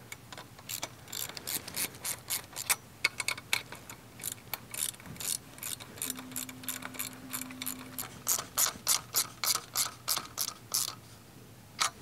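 Hand ratchet wrench clicking in runs of quick strokes, about three clicks a second, as the carriage-bolt nuts on a steel mast-to-mast mount bracket are tightened down.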